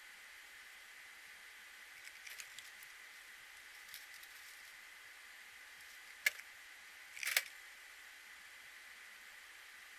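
Steady faint hiss with a few small clicks and rustles, a sharp click about six seconds in and a brief scratchy rustle a second later.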